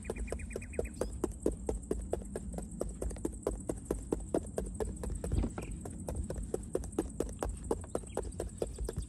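A kitchen utensil knocking on a hard surface in a fast, even rhythm, about five strokes a second, as in chopping or pounding food.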